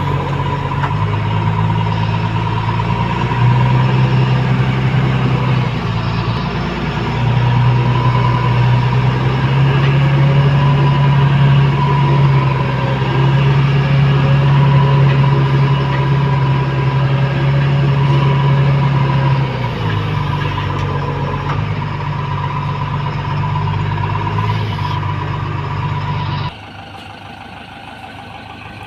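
Heavy diesel engine of a JCB earthmover running hard, its pitch stepping up twice and holding high under load, then easing, with a steady high whine alongside. Near the end the sound drops suddenly to a quieter engine running.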